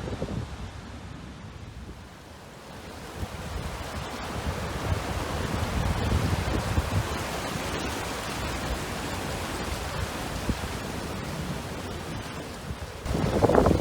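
Steady rushing of storm-swollen water, with wind buffeting the microphone. It dips briefly about two seconds in, then builds, and a louder gust hits near the end.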